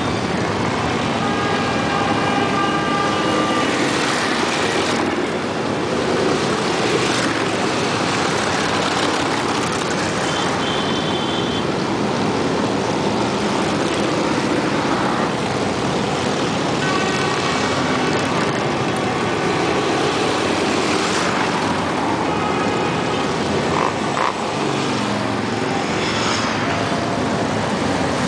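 A group of Harley-Davidson motorcycles riding past, their V-twin engines running continuously in a dense, steady mix of engine noise.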